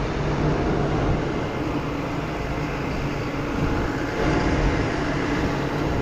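Large diesel tractors running steadily while working a corn silage bunker, pushing up and packing the chopped corn; the engine hum swells slightly about four seconds in.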